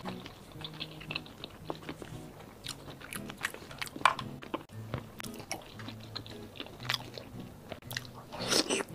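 Close-miked mouth sounds of eating a slice of salmon in chili oil: wet clicks and smacks of chewing, with a louder bite near the end. Quiet background music plays underneath.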